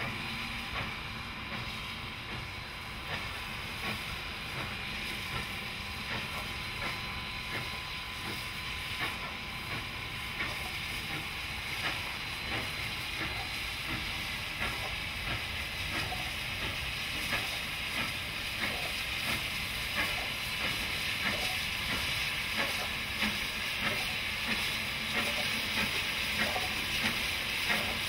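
Canadian Pacific 2816, a 4-6-4 Hudson steam locomotive, working past with a train: a steady hiss of steam with regular exhaust chuffs that grow plainer and louder toward the end as it draws near.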